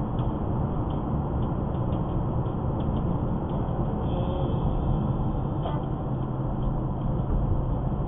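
Car driving at road speed, heard from inside the cabin: steady tyre and engine rumble.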